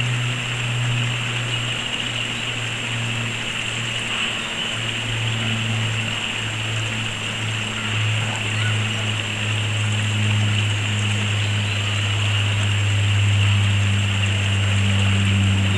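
Steady rush of flowing water with a low, even drone underneath.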